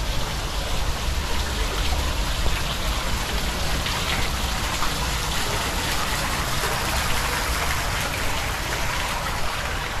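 Steady spattering hiss of falling water, like heavy rain or a splashing fountain, over a low rumble.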